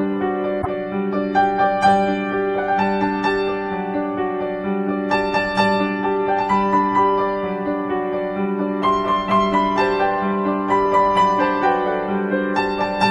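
Background piano music: a melody moving over a steady, repeated low accompaniment.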